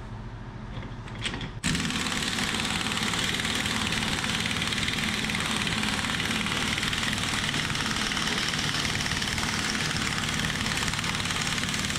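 Power impact wrench hammering steadily as it turns the screw of a ball joint press, forcing the metal sleeve out of a rubber suspension bushing. It starts abruptly a little under two seconds in, after a short softer run, and keeps going with no let-up.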